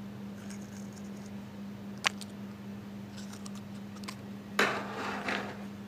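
Small objects and packaging being handled: scattered light ticks and rustles, a sharp click about two seconds in, and a louder rustling scrape near the end, over a steady low hum.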